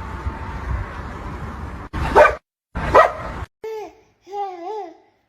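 A dog barks twice, loudly, about a second apart, then makes shorter wavering whining sounds. Before the barks there is a steady rumbling background noise that cuts off about two seconds in.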